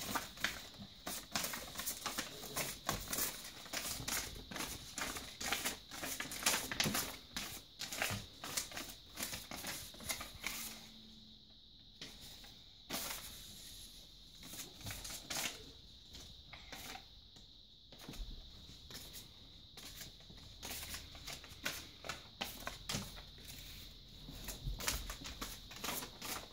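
Clear plastic zip-top bag crinkling and paper cutouts rustling as they are handled on a wooden dresser top, in many short, irregular rustles and taps, with two brief quieter pauses.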